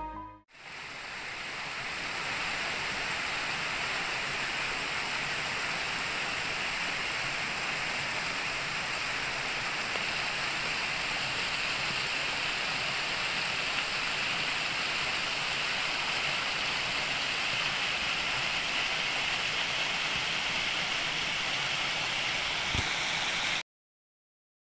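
Steady rush of a mountain waterfall and stream, an even noise that holds at a constant level and cuts off suddenly near the end.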